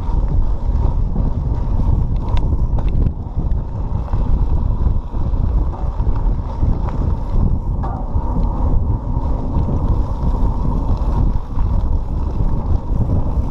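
Wind buffeting a GoPro microphone during a mountain bike ride on a dirt trail, a loud steady low rumble with the bike's rattle under it.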